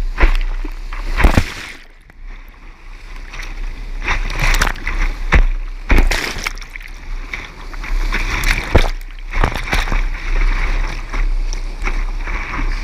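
Big-water whitewater rapids rushing around a kayak, with waves and paddle strokes splashing over the boat and onto the deck-mounted camera again and again. The rushing drops away briefly about two seconds in and again near nine seconds.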